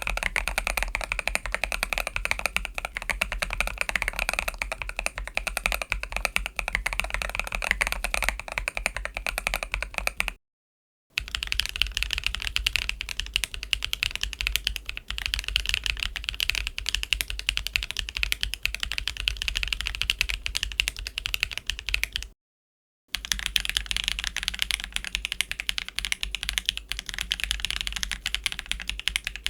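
Fast, continuous typing on a mechanical keyboard fitted with Bsun Golden Apple tactile switches: a dense stream of keystroke clicks. It comes in three runs, broken by brief silences about ten seconds in and again about twenty-two seconds in.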